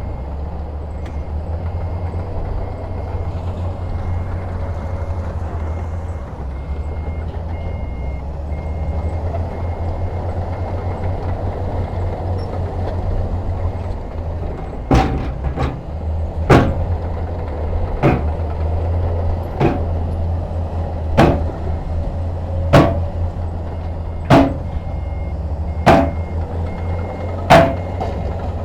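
Heavy diesel construction machinery running low and steady, with a reversing beeper sounding through the first few seconds. About halfway in, sharp knocks begin and repeat regularly about every second and a half.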